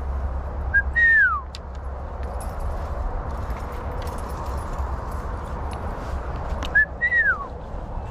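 A loud two-part whistle, a short high note and then a longer note sliding down in pitch, given twice about six seconds apart. Under it are footsteps rustling and snapping through leaves and brush.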